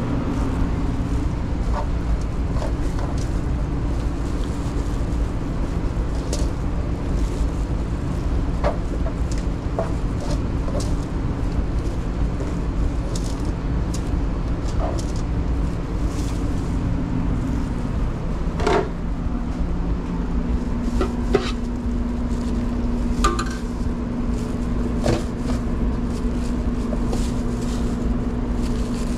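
Steady low hum of commercial kitchen equipment, its tone shifting about two-thirds of the way through, with scattered clicks and clinks of metal tongs and utensils against the griddle and pans.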